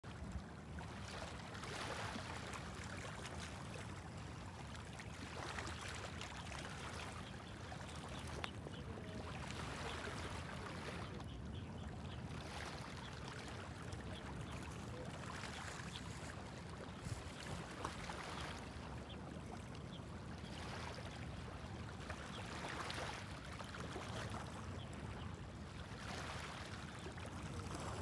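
Small sea waves lapping and washing up onto a sand and pebble shore, swelling and fading about every three to four seconds over a steady low rumble.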